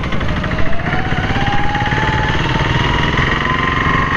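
A motor vehicle engine running with a rapid throb amid road traffic, its whine rising steadily in pitch as the vehicle gathers speed.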